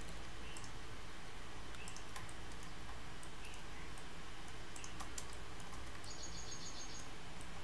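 Computer mouse clicks and scroll-wheel ticks, scattered and light, with a quick run of wheel ticks near the end, over a steady low hum.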